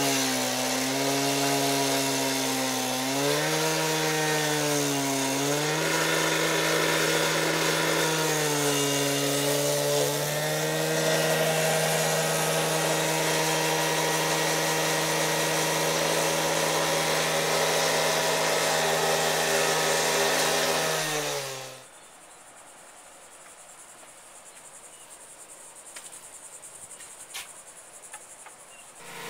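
Two-stroke gas cut-off saw running while cutting the concrete patio slab: the engine's pitch rises and falls as the blade bites, over a steady gritty hiss. It stops suddenly about 22 seconds in, leaving a faint background with a few light knocks.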